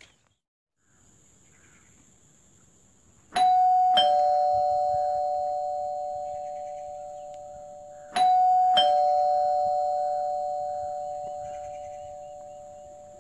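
Electric doorbell chiming ding-dong twice: a higher note then a lower one, each ringing on and fading slowly, the second ding-dong about five seconds after the first.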